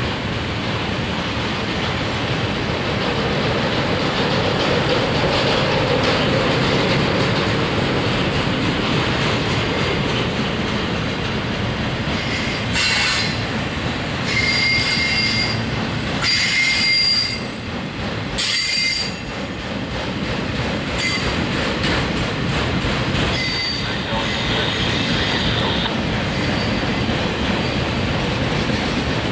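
Freight train of autorack cars rolling past, a steady rumble of steel wheels on rail, with short high-pitched wheel squeals coming and going through the middle of the pass.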